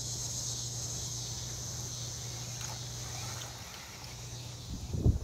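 Steady high-pitched chorus of insects, over a low steady hum. Near the end, loud low rumbling noise breaks in.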